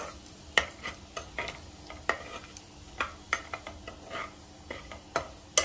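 Cumin seeds and a cinnamon stick frying in hot oil in a pan: a faint sizzle with sharp, irregular crackles every half second or so.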